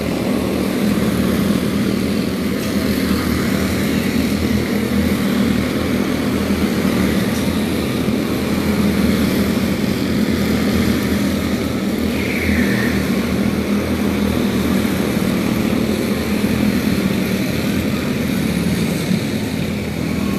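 Several quarter midget race cars' small single-cylinder engines running at speed as the cars lap the track together during a warm-up, a steady continuous drone.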